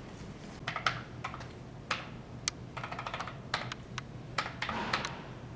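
Keys of a desktop paper-tape adding machine being tapped, irregular sharp clicks.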